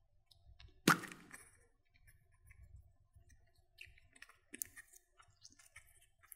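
Plastic toy capsule popping open with one sharp click about a second in, then smaller plastic clicks and rustles as a toy palm tree is worked out of it, and another sharp click at the end.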